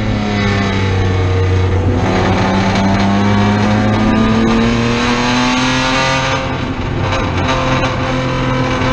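Race car engine heard from inside the cockpit, pulling hard under acceleration. There is a gear change about two seconds in, the pitch then climbs steadily for several seconds, and around seven seconds the sound dips briefly as the throttle comes off.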